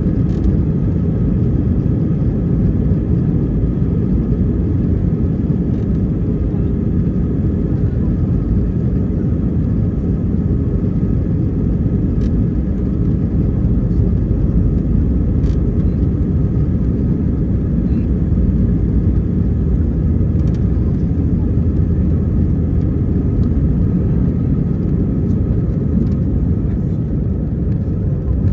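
Steady cabin noise of an Airbus A320 airliner in flight: a constant low rumble of engines and airflow, with a faint steady whine above it.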